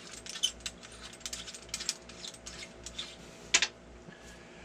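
Abu Garcia 7000 Catfish Special baitcasting reel being fitted into a rod's reel seat: a run of light clicks and rattles from handling the reel and seat, with a sharper click about three and a half seconds in, then quieter.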